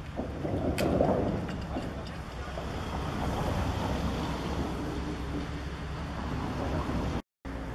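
A large engine running steadily, with wind on the microphone and a sharp knock about a second in.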